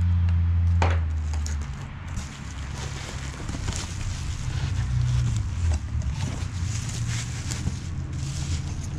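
Bubble wrap and a cardboard box crackling and rustling as they are handled, with many small crinkly ticks. A low steady hum is loud at first and dies away about two seconds in.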